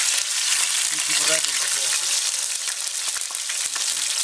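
Chunks of deer leg meat searing in very hot oil over a high flame: a steady sizzle full of fine crackles and spits as the outside of the meat seals.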